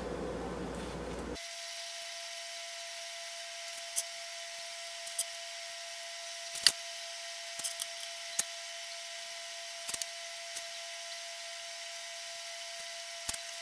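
Faint scattered clicks and light taps, about ten in all, over a steady faint hum, while polyurethane is brushed onto a concrete countertop.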